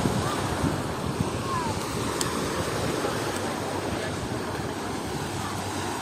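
Small sea waves washing onto a sandy shore, a steady surf noise, with wind buffeting the microphone.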